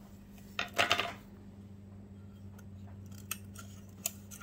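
Small glass leaf pieces being picked up and handled: a brief crackling crunch about a second in, then a few light, sharp clicks. A steady low hum runs underneath.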